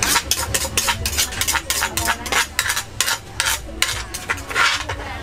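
A metal cooking utensil scraping and striking a pan in quick, even strokes, about four a second.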